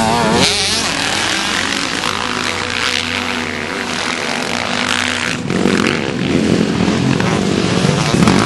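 Several motocross bikes running and revving on a dirt track: engines rising and falling in pitch as riders pass close at the start, then a steadier engine note, with a louder burst of engines about five seconds in.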